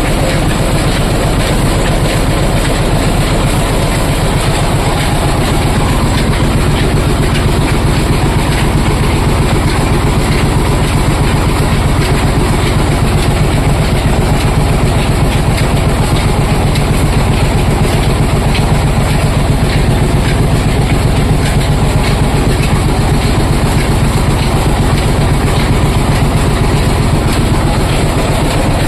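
Oil expeller machine running: a loud, steady mechanical rumble with a fast, even clatter.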